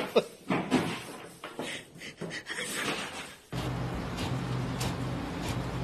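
Paper bag rustling and scraping around a cat that has it stuck over its head. About three and a half seconds in it gives way to an inkjet printer running, a steady hum with regular light clicks as it feeds paper out.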